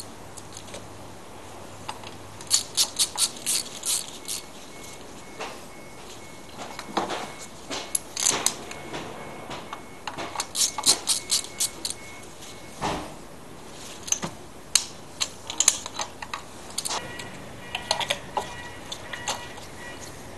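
Ratchet wrench on a spark plug socket and extension clicking in several short runs of quick clicks, about five a second, as spark plugs are taken out and refitted, with a few single knocks of metal tools.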